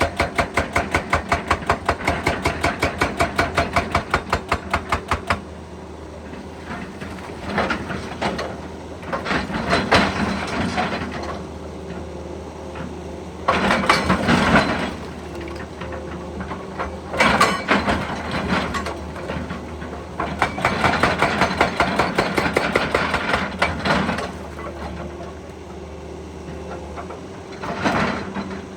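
Excavator's hydraulic breaker hammer pounding in a rapid, even train of blows that stops abruptly about five seconds in. The machine's engine then runs on, with several louder irregular surges of grinding and working noise.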